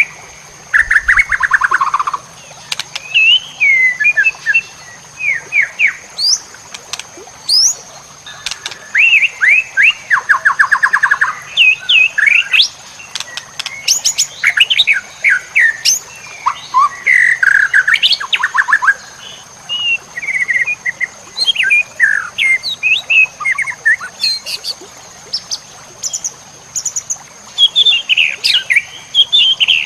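White-rumped shama (murai batu) singing a varied, loaded song of whistled glides, fast rattling trills and sharp high chirps in short phrases with brief pauses between them.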